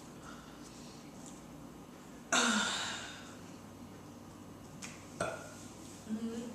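A woman burps once, loudly and abruptly, about two seconds in, the burp sliding slightly down in pitch and trailing off. A light click follows about three seconds later, and a short, low voiced sound comes near the end.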